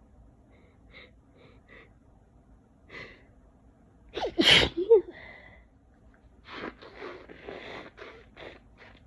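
A person with a head cold sneezes once, loudly, about four seconds in. A few faint short sounds come before it, and a run of quieter short noisy sounds follows it.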